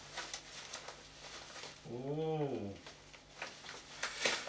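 A man's low hum, rising then falling in pitch for just under a second, over faint scratching and clicking as a knife works at duct tape on a plastic-wrapped parcel.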